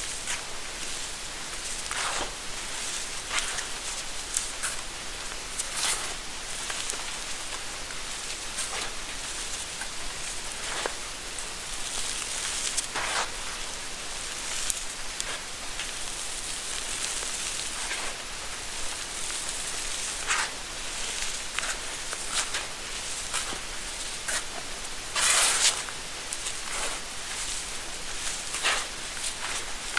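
Crumbly reformed gym chalk being scooped and sifted through bare hands in a bowl: a steady soft hiss of falling powder broken by frequent short crumbling rustles, with one louder pour late on.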